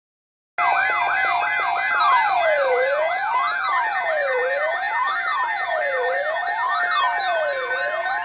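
Electronic warning siren for a weather alert, starting abruptly about half a second in. Quick up-and-down yelps give way to slower wails about a second and a half apart, layered over steady held tones.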